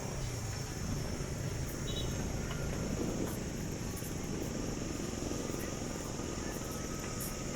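Street traffic ambience: a steady low rumble of passing vehicles, with a constant high-pitched buzz of insects over it.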